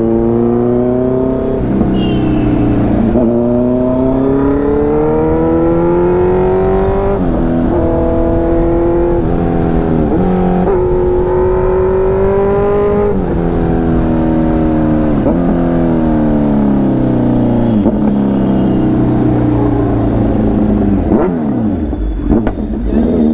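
Motorcycle engine heard from the rider's seat, accelerating hard through the gears: the pitch climbs and then drops sharply at each upshift, several times over, before it eases off and falls away near the end. The exhaust is loud, ridden without its dB killer.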